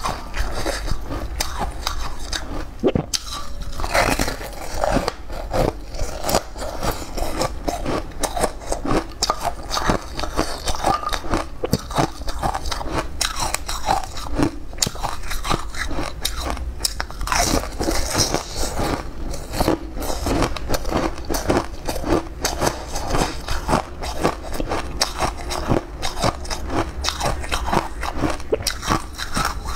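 Close-miked eating of a yellow-topped bun: repeated crunching bites and chewing, in quick irregular crackles.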